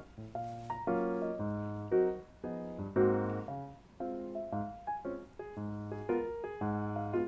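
Background piano music: a gentle keyboard tune of chords over a bass line, the notes changing about twice a second.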